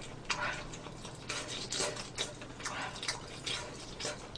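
Close-up wet chewing and mouth sounds of someone eating, in short irregular clicks and smacks about two or three times a second.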